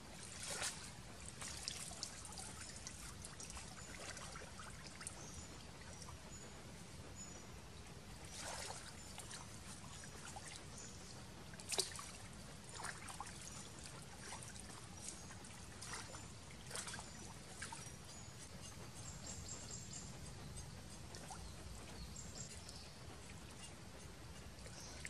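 Intermittent splashing and sloshing of water as hands and a cleaver work snakes in a shallow muddy stream, cleaning them. There is one sharp knock about twelve seconds in.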